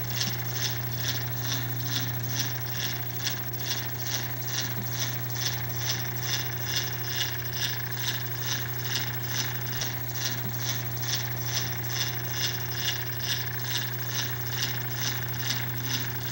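Home-built cat-petting machine running: its chain-and-sprocket drive turning with a steady low hum and an even swishing tick a little more than twice a second.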